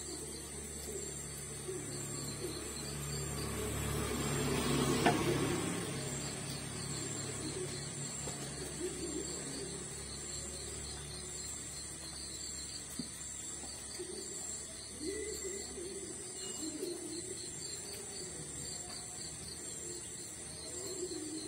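Liquid poured from a plastic bottle into a glass, a soft trickling that swells to a peak about five seconds in. Crickets chirr steadily underneath, with a low hum in the first half.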